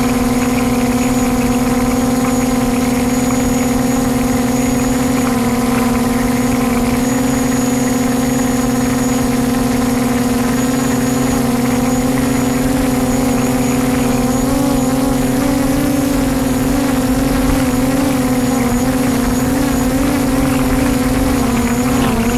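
DJI Mavic quadcopter drone in flight: its motors and propellers give a loud, steady hum whose pitch wavers slightly, with a thin high whine above it.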